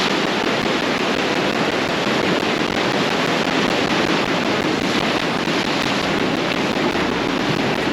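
Ocean surf washing onto the beach: a steady, unbroken rush of waves.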